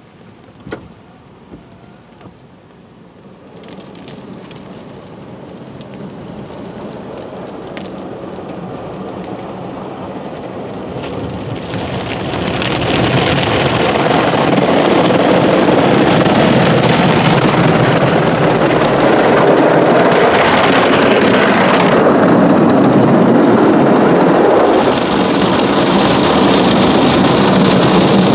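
Automatic car-wash brushes and water spray working over the car, heard from inside the cabin: a washing, drumming noise that swells gradually, turns loud about twelve seconds in and then holds steady. There are a couple of small knocks near the start.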